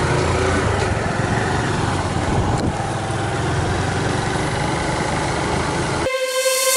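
A small motorbike's engine running steadily while riding along, with wind rushing over the microphone. The ride sound cuts off about six seconds in and guitar music begins.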